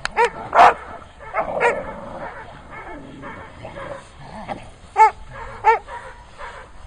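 Leashed dogs barking in short sharp bursts at a decoy who is agitating them with a tug during protection training. The barks come in a cluster over the first two seconds, the loudest about half a second in, then a lull, then two more barks about five seconds in.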